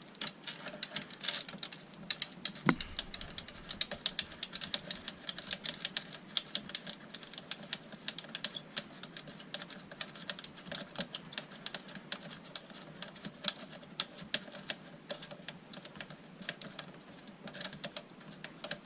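Rapid, irregular small clicks and taps of a Phillips screwdriver and hands working the screws and plastic parts of an original Xbox disc drive, with one louder knock about three seconds in.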